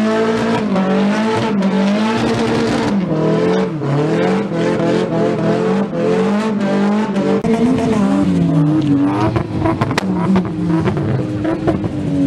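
Car engine revving hard during a burnout, the revs swinging up and down again and again, with tyre squeal from the spinning wheels. A single sharp crack about ten seconds in.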